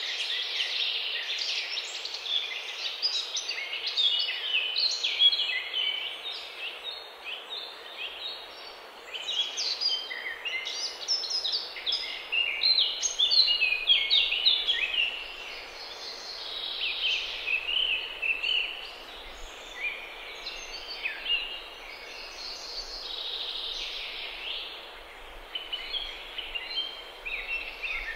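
Several songbirds singing, a dense, continuous chorus of short, quick high chirps and phrases, over faint steady background noise.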